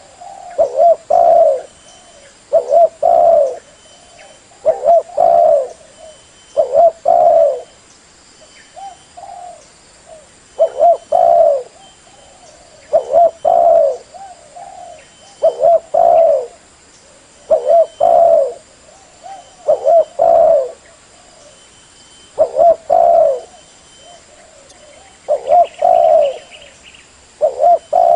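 Spotted dove cooing: a low, repeated coo phrase that comes back about every two seconds, with a few softer coos in the gaps. It is a decoy call, used to lure wild spotted doves to a trap.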